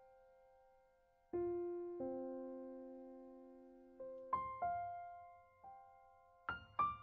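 Slow background piano music: single notes and chords struck and left to ring and fade, with a few quicker notes near the end.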